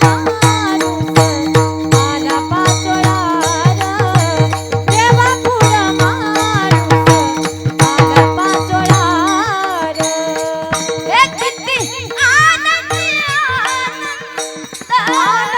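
Marathi devotional kirtan music: a sung melody over a steady drone, with quick, regular drum strokes that drop away about two-thirds of the way through while the singing carries on.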